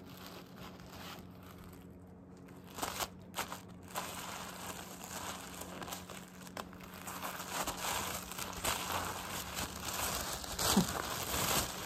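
Tissue-paper wrapping crinkling and rustling as a wrapped package is lifted out of a cardboard box and handled. It starts about three seconds in as scattered crackles and grows busier toward the end.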